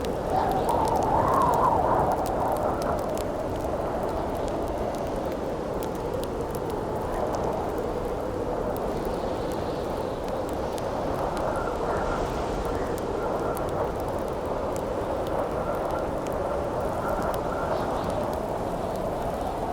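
Campfire crackling with scattered sharp pops over a steady howling wind. The wind swells louder about a second in.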